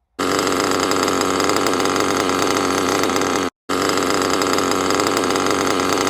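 Small nitro RC engine running steadily, carrying the extra whirring 'noise in a noise' of a bad rear bearing, which will shed pieces into the piston sleeve if ignored. The sound starts abruptly, drops out for a split second about three and a half seconds in, then carries on.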